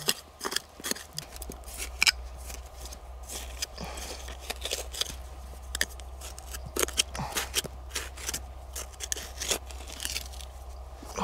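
A small metal hand digging tool scraping and jabbing into dry, stony soil: irregular gritty crunches and scrapes, several a second.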